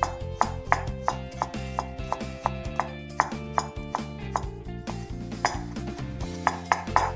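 Chef's knife chopping garlic cloves on a bamboo cutting board: quick, even knocks of the blade on the wood, about three to four a second, with background music underneath.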